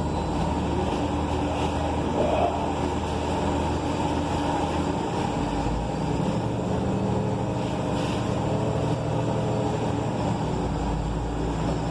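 Ride-along sound inside a bus under way: the Cummins Westport L9N natural-gas engine and Voith automatic transmission running steadily, with road noise. The engine note changes about halfway through.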